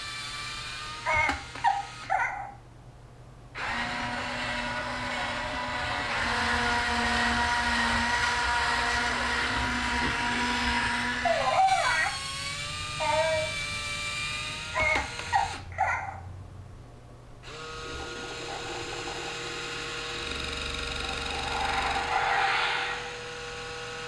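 The Child (Baby Yoda) remote-control animatronic toy making short, high, babbling baby coos through its small speaker, in two clusters. Each cluster is followed after a brief pause by several seconds of steady sound made of held tones.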